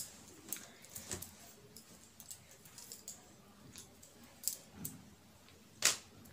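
Faint rustling and light clicking of a heavy red mirror-work saree being handled and folded, in scattered short bursts, with a sharper rustle about six seconds in.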